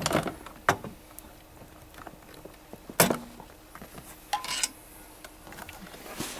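A few separate sharp clicks and snaps, the loudest about three seconds in: wire cutters snipping plastic zip ties off cables.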